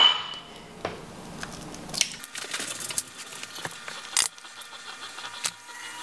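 Scattered light clicks and taps of eggs being cracked and separated over a bowl: eggshells knocked and clinking against the dish.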